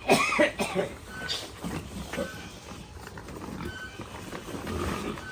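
Pigs calling from the pen, with a loud squeal right at the start and quieter grunts and noises after it.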